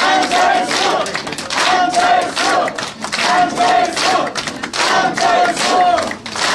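A crowd chanting a short slogan in unison, the phrase repeated about every second and a half, with claps in time.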